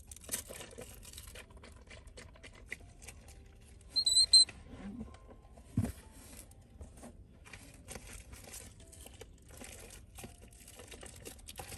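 Baby monkey suckling milk from a plastic feeding bottle: a run of small wet sucking clicks on the nipple. About four seconds in, a short, loud high squeak cuts through, and a brief low thump comes just before six seconds.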